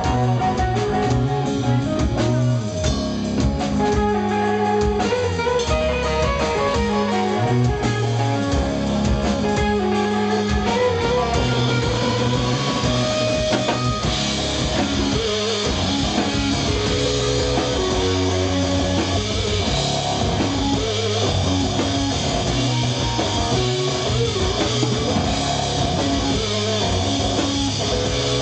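Live rock band playing: electric guitar, bass guitar and drum kit at a loud, steady level, the sound getting brighter and fuller about halfway through.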